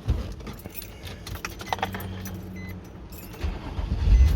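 Keys jingle in the ignition and the newly replaced fuel pump gives a low steady hum as it primes. About three and a half seconds in, the 2006 Nissan Murano's 3.5-litre V6 cranks and fires, then settles into a steady run.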